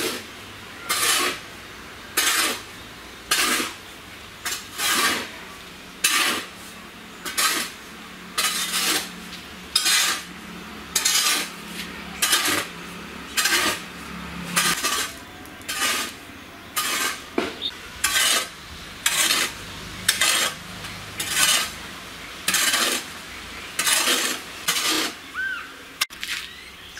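A metal tool scraping through a wet mud and water mix in a long, even run of short strokes, a little more than one a second, stopping shortly before the end.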